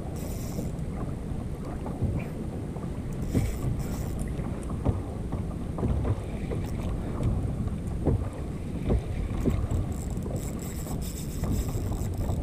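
Wind rumbling on an action camera's microphone over water moving against a kayak, with a few light knocks scattered through it.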